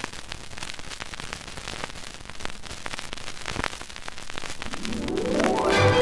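Vinyl LP surface noise in the quiet band between two tracks: a steady hiss with scattered crackles and pops from the stylus in the groove. The next track's music comes in about five seconds in.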